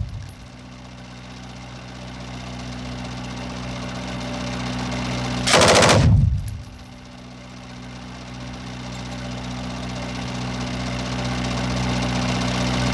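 A single burst of automatic fire, about a second long, from a K57 7.62 mm machine gun, a little past the middle. Under it a steady engine hum runs throughout, slowly growing louder.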